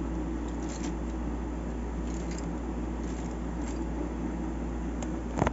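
Steady low background hum with a few faint ticks, and one sharp click near the end.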